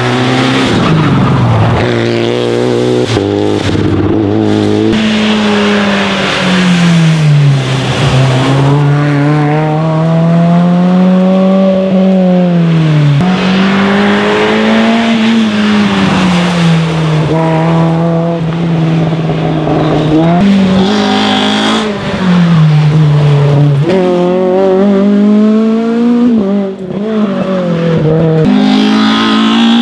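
Rally car engine at full effort, its pitch climbing and falling again and again as the car accelerates, changes gear and slows for corners. Brief tyre squeal comes in once or twice.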